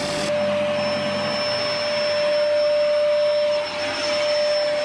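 Wood lathe running with a steady motor whine while rough sandpaper, held by hand against the spinning ash bowl, hisses on the wood.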